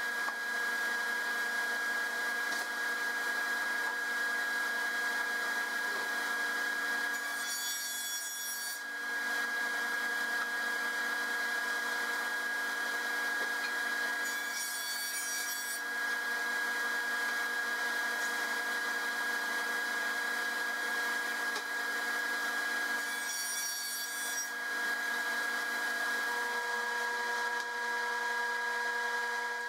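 Table saw running steadily while strips are ripped from prefinished maple plywood. The cutting sound rises over the motor hum three times, each for a second or two.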